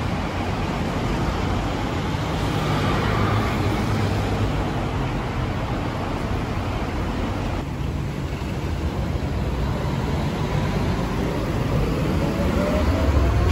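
City street traffic noise: a steady low rumble of passing vehicles, with a faint rising whine near the end.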